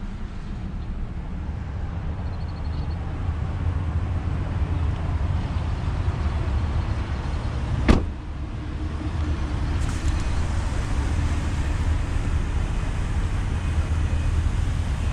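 A pickup truck's door is slammed shut once, with a single sharp bang about halfway through, over a steady low rumble.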